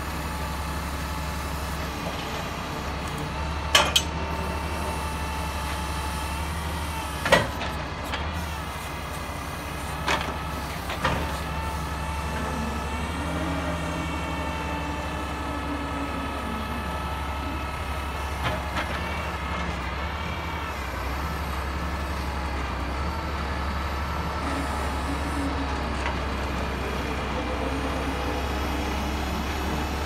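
Truck-mounted knuckle-boom log loader at work: its engine runs steadily with a steady hydraulic whine over it, while oak logs are handled with the grapple. Several sharp, heavy knocks sound in the first eleven seconds, the loudest about seven seconds in, as logs bump onto the truck's load.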